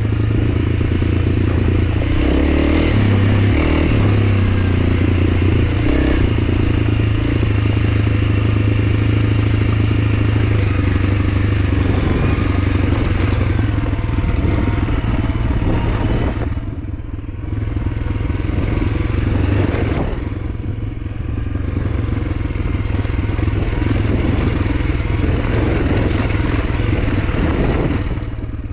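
Honda CRF300L's single-cylinder four-stroke engine running steadily while being ridden, easing off briefly twice in the second half.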